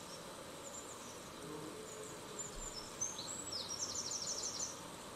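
Faint high-pitched bird chirps over a low steady background hiss, becoming more frequent in the second half and ending in a quick trill of rapid chirps.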